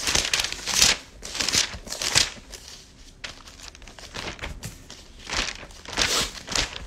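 Pages of a Bible being flipped through: a run of short papery swishes and rustles, sparser in the middle.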